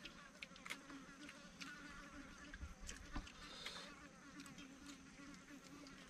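Faint steady insect buzzing, with scattered light clicks.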